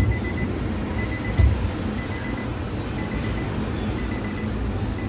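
Nissan Livina's warning chime beeping in short rapid groups about once a second, over a steady low hum, with a couple of dull thumps near the start and about a second and a half in.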